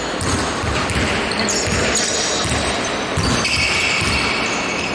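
Basketball game play: the ball bouncing on a gym floor amid court noise, with shrill high tones held for about a second near the middle and again near the end.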